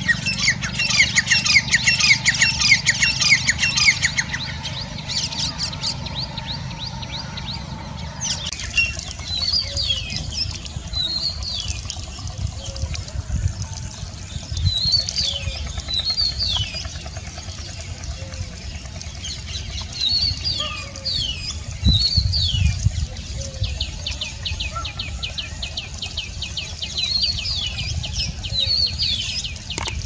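For the first eight seconds or so, a grey francolin calls in a fast run of harsh, repeated notes over a low hum. Then an Oriental magpie-robin sings: clear whistled phrases, rising and falling, repeated every second or two.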